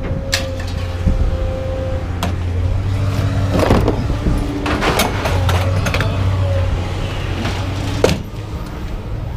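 Vehicle engine running with a steady low hum, over which come several sharp knocks and clanks, the loudest near the end.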